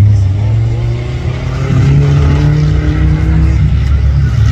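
Off-road 4x4 race jeep's engine under hard throttle on rough dirt, its pitch climbing steadily through the middle as it gains revs, then easing off near the end.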